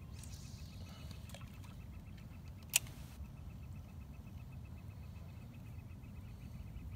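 Spinning fishing reel being wound in after a cast, a fast even ticking, with one sharp click about three seconds in, over a low wind rumble.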